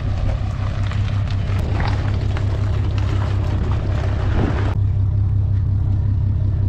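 Steady low engine rumble with rougher, noisy wind and mechanical sound over it; about two-thirds of the way in the higher noise drops away suddenly, leaving the low rumble.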